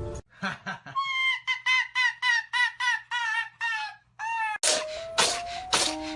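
An animal giving a quick series of about ten short, high calls, each bending in pitch, about three a second. About four and a half seconds in, music with a steady beat takes over.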